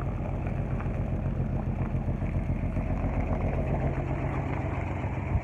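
An engine running steadily at idle: an even low hum with no change in speed.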